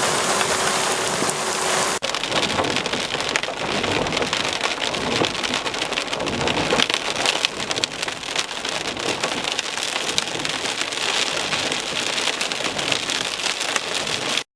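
Heavy rain falling, a dense steady pattering of drops on a surface. There is a cut about two seconds in; before it a steady hum sounds under the rain.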